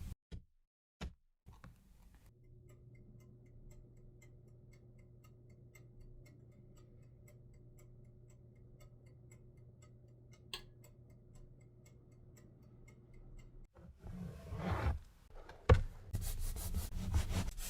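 A steady low hum with faint, evenly spaced ticks, like an oven running while the castella bakes. About fourteen seconds in it gives way to louder, irregular rubbing and scraping.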